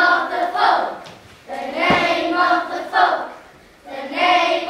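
A group of children chanting a line together in unison, in three phrases with short pauses between them. A single low thump sounds about two seconds in.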